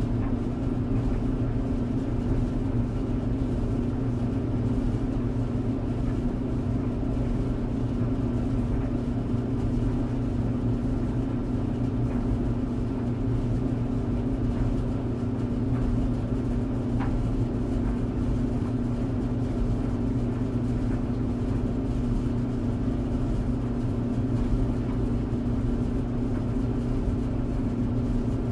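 Clothes tumble dryer running: a steady hum and rumble from the motor and turning drum, unchanging throughout.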